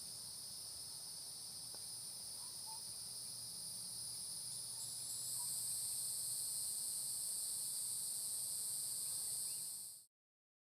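Daytime chorus of insects in tropical trees: a steady, high-pitched buzzing drone that grows louder about halfway through, then fades out quickly near the end into silence.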